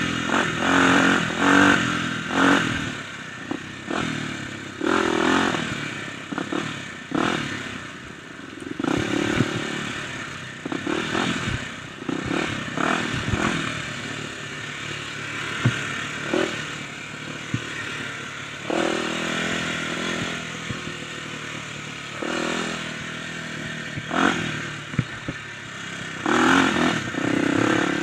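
Kawasaki dirt bike engine revving up and easing off again and again as it is ridden over a rough dirt trail. Sharp clattering knocks come from the bike over bumps.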